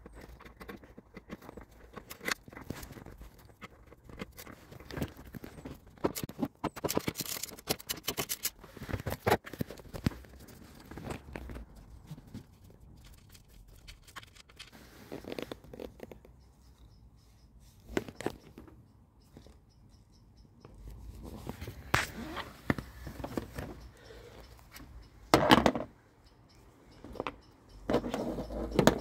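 Irregular clicks, scrapes and knocks of hand tools and metal parts being handled during car repair work. There is a quick run of clicks about seven seconds in and a few louder knocks near the end.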